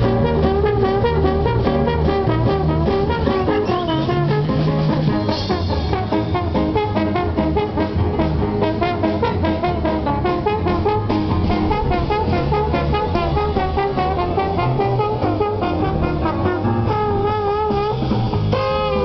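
Band playing jazz-style music with brass and drums, continuous and upbeat.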